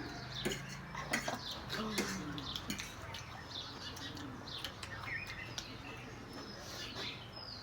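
Small birds chirping in short, scattered calls, mixed with faint clicks.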